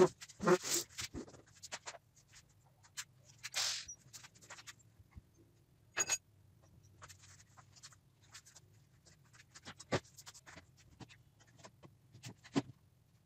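Scattered light knocks, scrapes and clicks of a person climbing onto furniture and handling a wooden nest box against a wall, with a few sharper clicks in the middle and near the end. A goat's bleat tails off in the first second.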